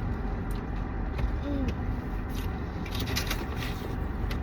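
Eating sounds inside a car: scattered short clicks, crinkles and crunches of food and takeout containers being handled, over a steady low hum in the cabin.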